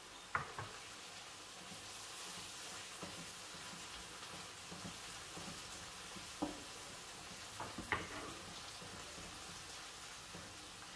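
Food frying and sizzling in a pan while it is stirred with a wooden spoon, with a few sharp knocks of the spoon against the pan: just after the start, about six seconds in and about eight seconds in.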